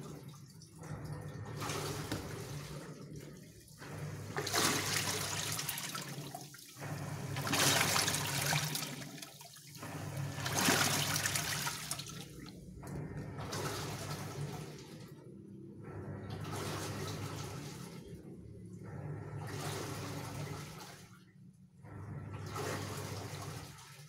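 Polytron Zeromatic top-loading washing machine in its wash cycle, the pulsator churning the water in the tub in surges every two to three seconds with short pauses between, over a low hum.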